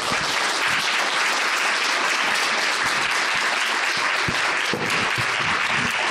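Audience applauding, a steady, even clapping throughout.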